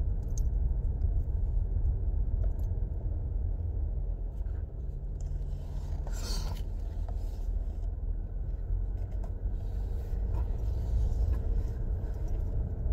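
Steady low rumble inside a car cabin, with a brief scrape or rustle of the handheld phone about six seconds in.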